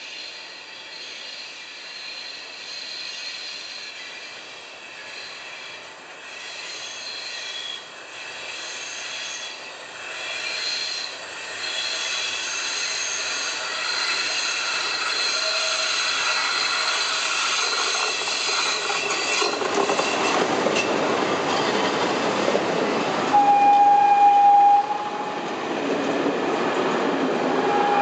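DB class E94 'Krokodil' electric locomotive hauling a passenger train, approaching round a curve and passing close by. Thin high squeals come and go at first, the rumble of wheels on the rails swells from about two-thirds in, and a loud steady high tone sounds twice near the end.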